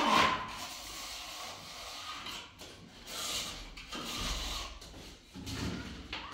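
A handful of separate scrapes and light knocks from hand masonry work on a concrete floor, each a second or so apart.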